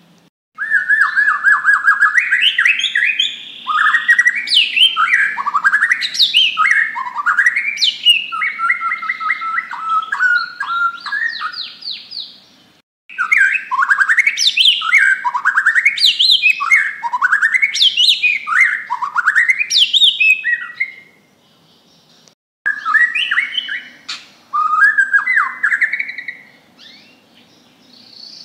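Bornean white-rumped shama (murai batu) singing its loud full song in three long bouts of fast, varied whistles, rising and falling sweeps and rapid trills, with short breaks between them. This is the kind of loud song played as a lure to set other shamas singing.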